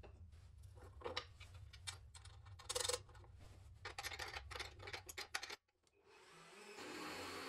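Workshop tool sounds: a run of irregular taps and clicks over a low hum, then, after a short break, a steady noise from a tool at work.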